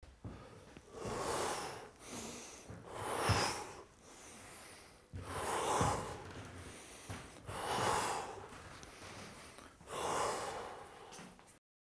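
A person breathing deeply and audibly, about five long breaths spaced a couple of seconds apart, the last one fading out shortly before the end.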